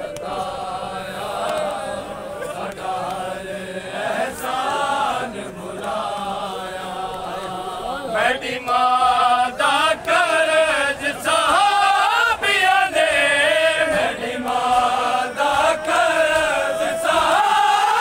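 Men's voices chanting a bain, a mourning lament for Hazrat Fatima, in a melodic elegiac recitation. It grows louder and fuller about eight seconds in.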